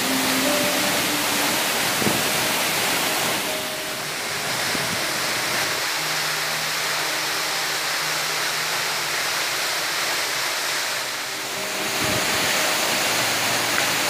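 Waterfall plunging into a rocky pool: a steady, full rush of falling water.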